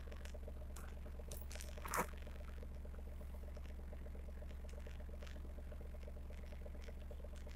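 Faint crunching and chewing of dry tapioca starch, scattered small crackles with one louder crunch about two seconds in, over a steady low hum.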